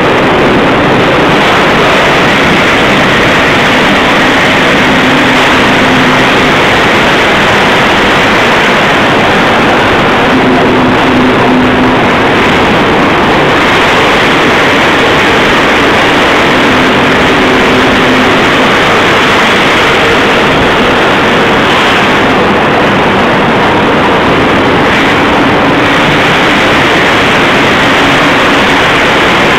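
Loud, steady machinery din of a steel section rolling mill running, with roll stands and roller tables carrying a red-hot bar. A faint hum comes and goes under the noise.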